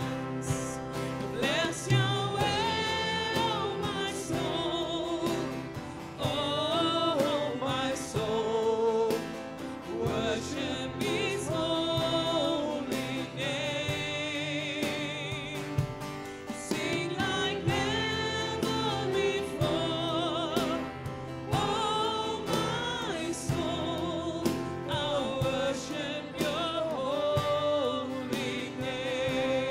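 A live church worship band plays a worship song: a singer's melody with vibrato carried over the band's instruments and a steady beat.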